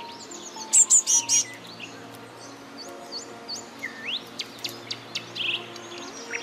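Small songbirds chirping and calling: a burst of loud, sharp high notes about a second in, then short upward-flicked chirps, a rising call and a quick trill. Faint background music runs underneath.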